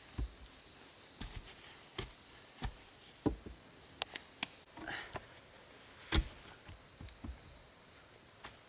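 Irregular knocks and taps of wood being worked by hand, about a dozen sharp strikes spaced unevenly, the loudest about six seconds in.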